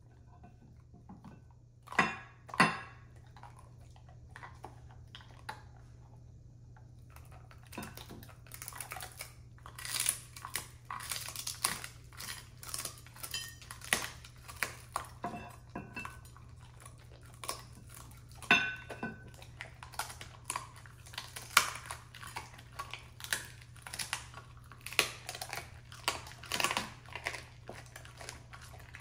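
Dogs crunching and chewing hard food off ceramic plates: irregular crunches with clinks of teeth and food against the plates, two sharp clicks about two seconds in, then steady crunching from about eight seconds in.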